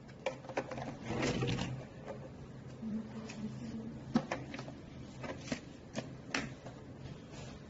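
A string of separate hard clicks and knocks from objects being handled, with a brief rustle about a second in.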